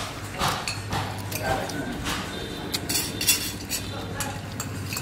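Metal spoons clinking against ceramic plates as people eat rice, a string of sharp clinks at irregular intervals.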